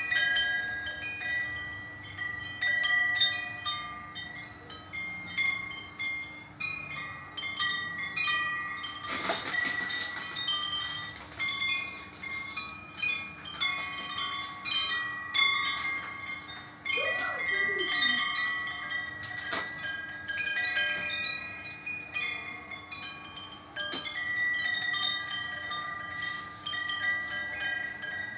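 Aluminium tubular wind chime with an owl-motif top, its clapper knocking the tubes irregularly as it sways in the breeze, so the tubes ring and tinkle in overlapping, lingering tones.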